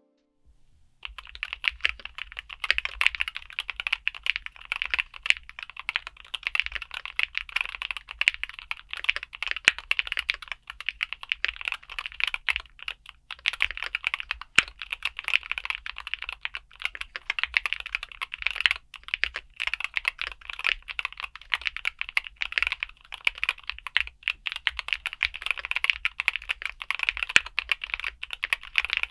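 Continuous fast typing on a Keychron K2 HE Concrete Edition keyboard: Gateron Magnetic Nebula Hall-effect switches under PBT keycaps in a concrete case. The typing starts about a second in.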